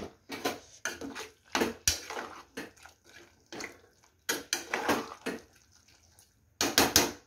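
Metal ladle stirring a watery pigeon pea and vegetable curry in a metal pressure cooker: irregular wet slopping with metal scraping against the pot, loudest near the end.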